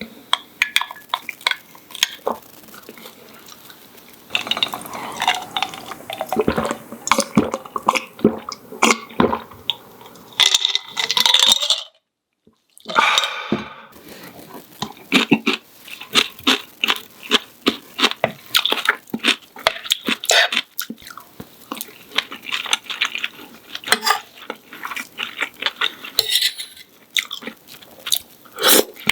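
Close-miked eating: chewing and crunching of a breaded pork cutlet meal, with cutlery clicking against dishes. There is a brief break to silence about twelve seconds in.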